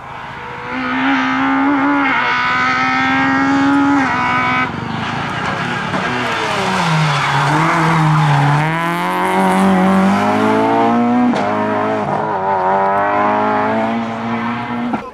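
Renault Clio rally car's engine revving hard, held at high revs at first. The revs fall sharply about six seconds in, as under braking and downshifting, then climb again with a short break for a gear change around eleven seconds.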